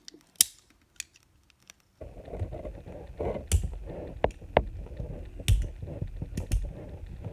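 Sharp clicks of a tool working the plastic rivets out of a 1/64 scale diecast model car. About two seconds in, a steady scraping and handling noise starts, with many small clicks.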